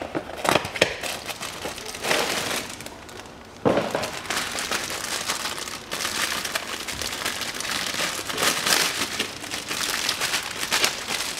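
Crinkly plastic wrap and a cardboard box being handled as a new panel air filter is slid out of its box and unwrapped, a dense run of crackling and rustling with quick clicks.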